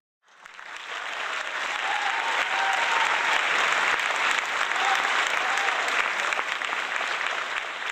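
Theatre audience applauding a curtain call: clapping starts just after the beginning, builds over the first two seconds to steady, dense applause and eases slightly near the end.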